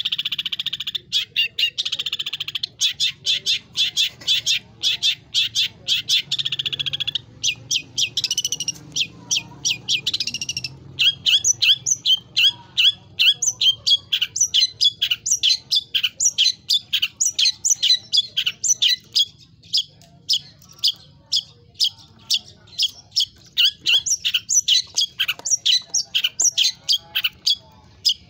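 Long-tailed shrike (cendet) singing a loud song full of mimicked phrases. It opens with a dense, buzzy trilling warble for several seconds. Around the middle it breaks into a long run of sharp, rapid repeated notes, about three a second.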